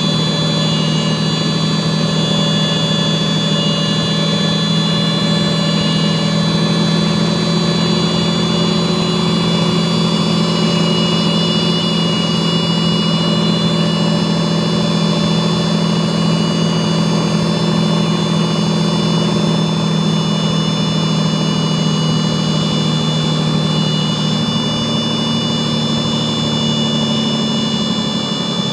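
Light airplane's engine and propeller droning steadily on a landing approach, with a continuous high-pitched tone over it throughout, which the uploader ties to a stall warning problem. The drone eases slightly near the end.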